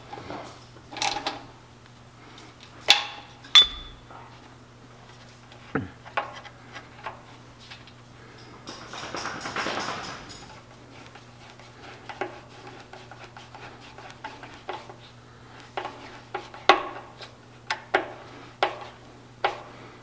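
Hand tools and metal parts clinking and knocking as an air compressor's regulator fittings are reassembled, with scattered sharp clicks and a short stretch of rubbing about halfway through. A faint steady hum runs underneath.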